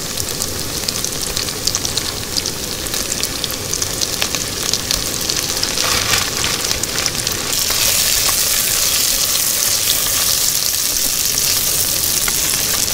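Chopped tomatoes and other pieces sizzling and crackling in hot oil in an aluminium karahi, stirred with a silicone spatula. The frying grows louder about halfway through.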